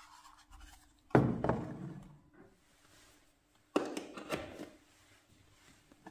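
Thunks of a small rework soldering station's metal-and-plastic case being set down and handled on a tabletop: two sharp knocks about two and a half seconds apart, the first the loudest, with lighter handling rattles around them.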